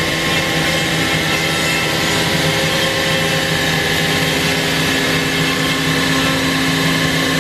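CNC router running steadily while milling a wooden guitar neck: a constant spindle whine with several steady tones over a hiss of machine noise.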